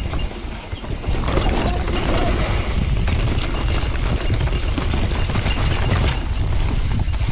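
Mountain bike riding downhill on a dirt trail: heavy wind rumble on the helmet-mounted microphone, with tyres rolling over the ground and the bike rattling and clattering over bumps, getting louder about a second in.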